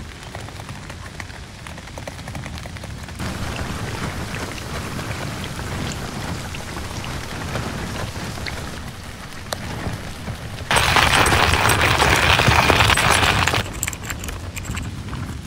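Sandstorm wind driving sand against tent fabric: a dense, pattering hiss that jumps louder in abrupt steps, loudest for about three seconds in the latter half.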